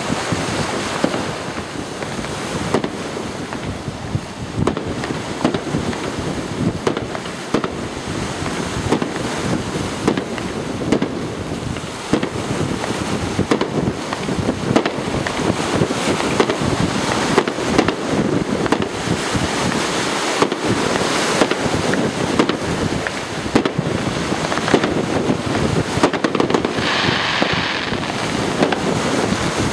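A fireworks display: a dense, irregular run of bangs and crackles from aerial shells bursting, with a brief hiss near the end.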